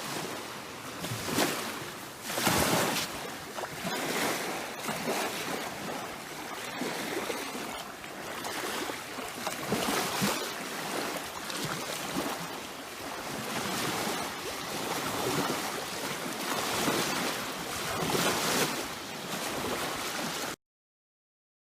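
Small waves lapping and washing at the water's edge in uneven surges, with wind on the microphone. The sound cuts off suddenly near the end.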